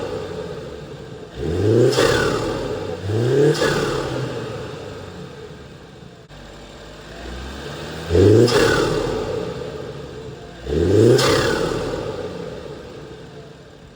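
2019 BMW 430i's turbocharged 2.0-litre four-cylinder (B46), fitted with an MST performance intake, revved in four quick throttle blips. Each rise in pitch is followed by a loud turbo flutter as the throttle closes, heard from inside the cabin.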